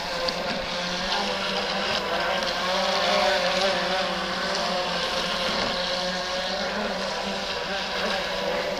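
NDQ PX-16 electric RC boat running on the water: a steady motor whine over the hiss of the hull through the water, swelling slightly about a third of the way in.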